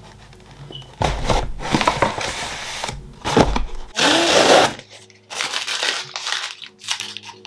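Cardboard shipping box being handled and opened by hand: irregular bursts of scraping, rustling and tearing of cardboard and packing tape, the loudest about four seconds in.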